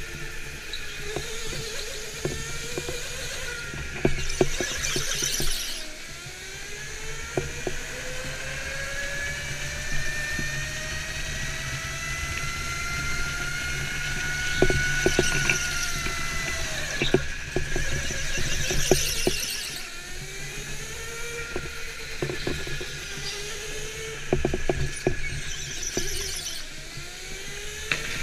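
Go-kart lapping a track: its motor whine climbs in pitch along the straight and drops into the turns, while the tyres squeal through the corners in a few short spells. There are scattered sharp knocks as the kart runs over the track.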